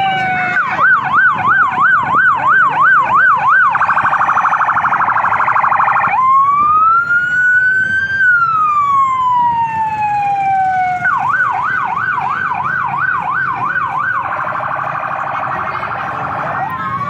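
Loud electronic siren cycling through its tones: a slow falling and rising wail, a fast yelp of about three warbles a second, then a harsh rapid buzzing tone, the whole cycle running twice.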